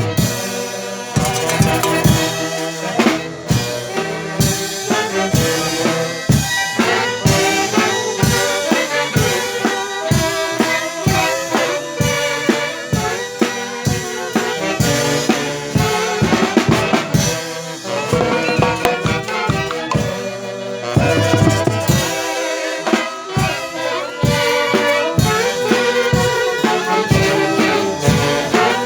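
Band music with horns and a drum kit playing a steady, driving beat.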